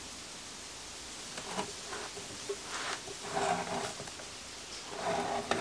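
Wooden radio cabinet scraping and rubbing on the workbench in three short bouts as it is shifted to slide the chassis out. Under it is a steady rushing hiss of wind coming through an open door.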